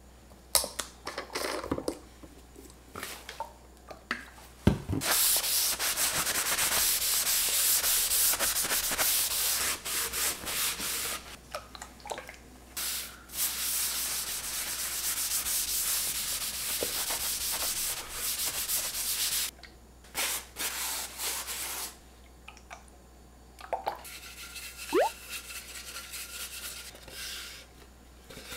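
A paper towel rubbing mineral oil into a dry wooden cutting board: a steady scrubbing hiss in long passes. A few clicks and knocks come before it, and softer rubbing with a couple of knocks follows near the end.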